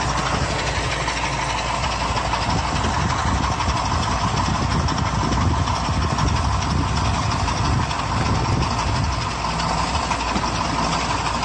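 KAMAZ truck's diesel engine running steadily, a continuous low rumble at an even level.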